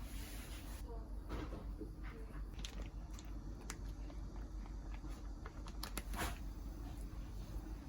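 Scattered light clicks and knocks over a low steady hum, the loudest knock about six seconds in.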